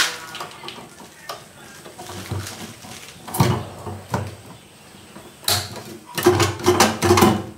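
Plastic flush plate of a concealed cistern being handled and pressed into its wall frame: scattered clicks, knocks and scrapes of plastic, closing in a busier run of them near the end.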